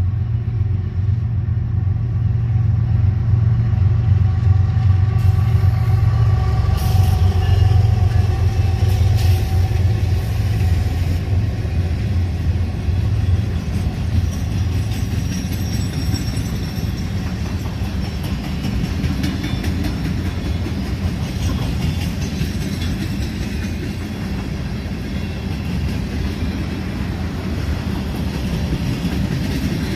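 Union Pacific freight train passing, led by GE diesel locomotives, UP 7870 a C45ACCTE and UP 6160 a C44ACM. A heavy low engine drone dominates for about the first twelve seconds, then gives way to the steady rolling of the rail train's flatcars on the track.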